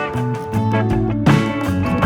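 Background music: a guitar-led rock/blues track with a steady beat.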